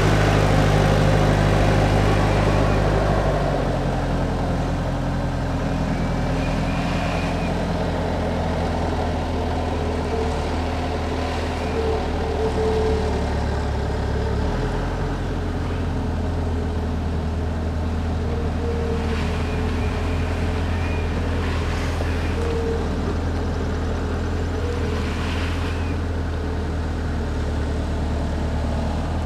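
Bobcat A300 skid-steer loader's diesel engine running steadily as it works loading logs. Its note shifts about three seconds in and again about halfway through.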